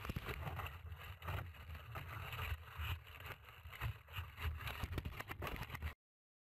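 Rough wind rumble on the microphone and irregular scraping and crackling, picked up by a camera on the nose of a foam RC glider that has come down among pine trees and logs. It cuts off suddenly near the end.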